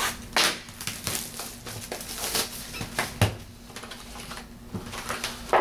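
Hands opening a box of trading card packs: a series of irregular crackles and rustles of wrapping and cardboard.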